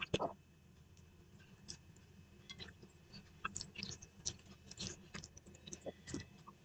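A person eating rice and dal with the fingers from a plate: faint chewing and mouth smacks with scattered small clicks, one louder click just at the start.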